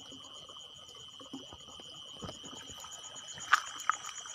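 Crickets chirping in a steady high trill, with a faster pulsing chirp above it. Two sharp clicks come about three and a half seconds in.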